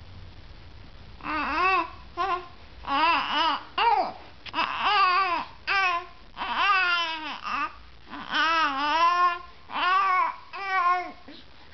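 Young infant cooing and babbling: a string of short, high-pitched vocal sounds that rise and fall in pitch, starting about a second in, with brief pauses between them.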